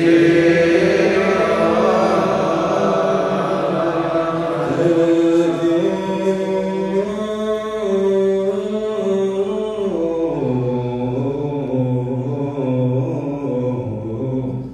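Ethiopian Orthodox liturgical chant: voices holding long, slowly shifting notes in one melodic line, stepping down to a lower pitch about ten seconds in.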